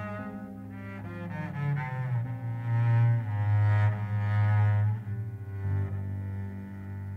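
Double bass played with the bow, holding long low notes that swell loudest from about three to five seconds in, over quieter accompaniment from the rest of the band.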